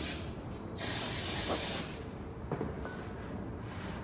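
Aerosol brake cleaner sprayed into a brake drum in two hissing bursts: a short one cutting off right at the start, then a second of about a second's length.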